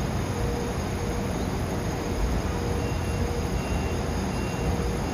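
Steady outdoor rumble of a rail yard and construction site, with a faint tone that keeps switching on and off.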